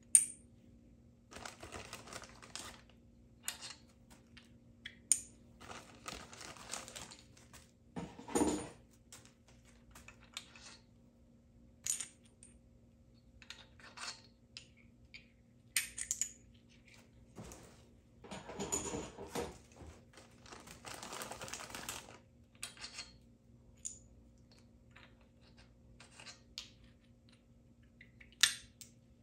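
Hand tools and small metal parts of a small-block Chevy 350 clinking and knocking as the engine is taken apart. The knocks are scattered, with a few short stretches of rattling or scraping about 2, 6, 19 and 21 seconds in, over a steady low hum.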